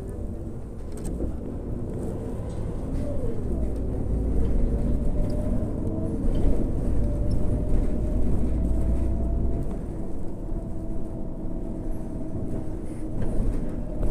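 Irisbus Crealis 18 GNV articulated natural-gas bus driving, heard from on board: whining tones from the drivetrain glide up and down in pitch over a deep engine rumble that grows louder from about four to ten seconds in.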